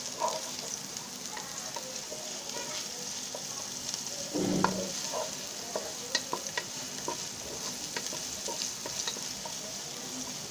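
Sliced onions sizzling in a little hot oil in a non-stick pot while a wooden spatula stirs them, scraping and tapping against the pot; a steady hiss with many small scrapes and ticks, and one brief louder sound about halfway through.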